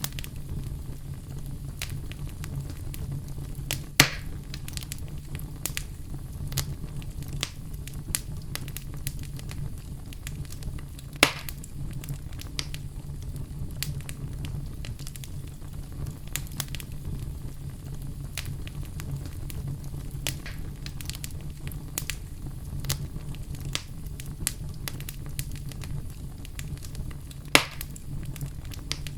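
Fire burning, with a steady low rumble and irregular sharp crackles throughout. Three louder pops stand out: about four seconds in, about eleven seconds in, and near the end.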